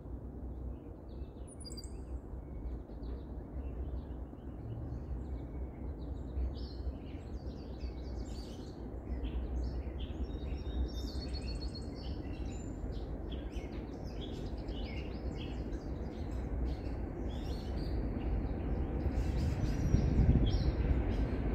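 Songbirds chirping and trilling over a steady low rumble. The rumble builds near the end as the approaching freight train becomes audible.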